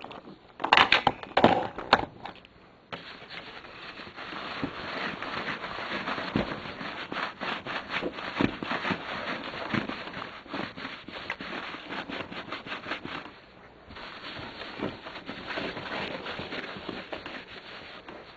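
Rubbing and wiping across a pinball playfield with a cloth or paper towel, a continuous crackling rustle broken by many small clicks. It opens with a few sharp knocks and pauses briefly near the end.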